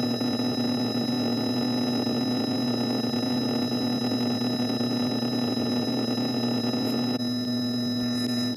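Synthesized electronic sound effect: several steady sine-like tones held together, the lowest a strong hum, over a grainy buzzing layer that drops away suddenly about seven seconds in while the tones go on.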